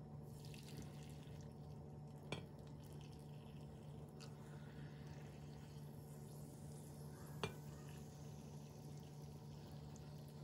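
Liquid pouring from a glass jug into glass jars packed with peppers, a soft trickle, with two light glass clinks, one about two seconds in and one about seven seconds in.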